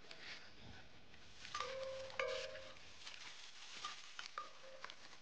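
Lumps of charcoal tipped from a plastic bag into a metal fire bowl, dropping with scattered clinks and knocks and a few short ringing notes.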